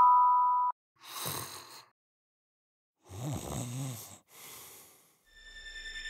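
A person snoring: a short snore about a second in, then a longer, wavering snore at about three seconds and a softer breath after it. Before them, a mallet-percussion chord rings and cuts off in the first second, and music starts to swell near the end.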